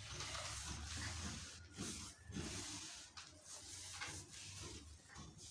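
Shelled maize kernels rustling and pattering in a tray as they are tossed during winnowing, in irregular surges.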